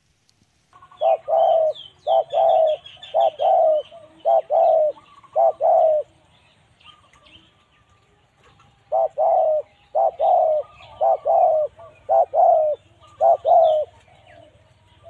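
Pigeons cooing: two runs of short, repeated coos, about six at first and about seven more after a pause of a few seconds.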